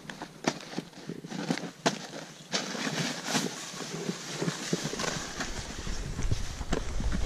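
Snow crunching under boots and snowboard in irregular sharp crunches, then a snowboard sliding over packed snow with a steady hiss from a few seconds in. Wind rumbles on the microphone near the end.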